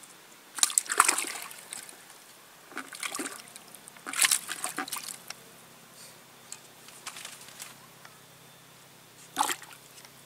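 A caught fish splashing in a plastic bucket of water, in several short bursts, the loudest about a second in and a last sharp splash near the end.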